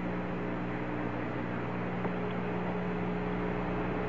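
Steady hiss and low hum of an open air-to-ground radio channel between transmissions, with one faint click about two seconds in.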